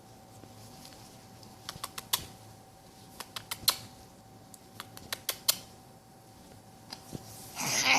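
Sharp clicks or taps in small scattered clusters over a faint steady hum, then near the end a baby girl's loud voice starts up, her growling vocalizing.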